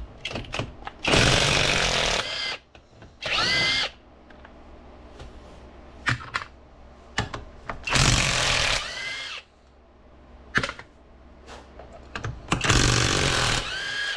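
A power tool spinning out the 13 mm housing bolts of an NP241C transfer case. It runs in four short spurts, some with a rising whine as the motor speeds up, with small metal clicks between them.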